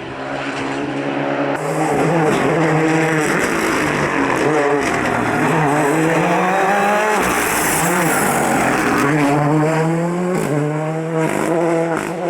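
Rally car engine under hard acceleration. It gets louder about a second and a half in, and its pitch climbs and drops several times as the driver shifts gears and lifts off the throttle.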